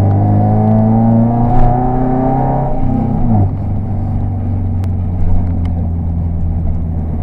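Car engine running steadily, its note dropping sharply about three seconds in, as when the driver lifts off or changes gear, then holding at a lower, steady pitch.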